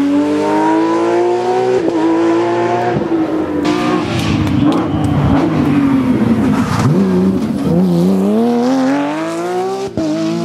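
Porsche 911 GT3 rally car's flat-six engine at high revs under hard driving. The pitch climbs for the first couple of seconds, falls away through the middle with a rougher, noisier stretch, then climbs again before a brief cut near the end, like a gear change.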